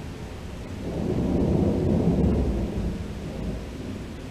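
Thunder rumbling, swelling about a second in and fading away about two seconds later, over steady rain.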